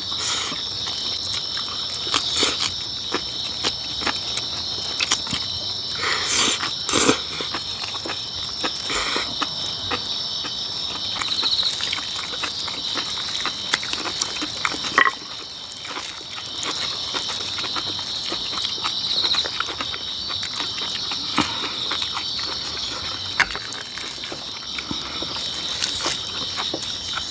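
Crickets chirping steadily, with scattered close-up clicks and crunches of people eating: chewing kimchi and clicking chopsticks against dishes.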